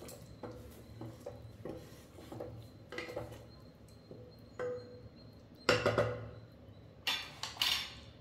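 Kitchen utensils and dishes knocking and clinking: a run of light taps, a louder clatter about six seconds in, and a short harsh scrape-like noise about seven seconds in.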